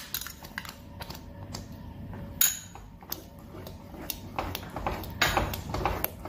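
Kitchen utensil sounds: scattered clicks and scrapes, with one sharp knock about two and a half seconds in, then a wooden spoon stirring thick rice-and-milk phirni in a steel pan in quick repeated scraping strokes over the last couple of seconds.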